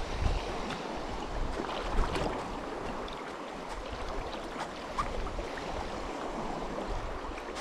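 Shallow sea water lapping and sloshing around legs wading in it, with small splashes and ticks throughout.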